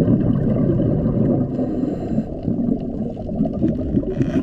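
Muffled underwater bubbling and gurgling, low and dense, with nothing heard above a low range.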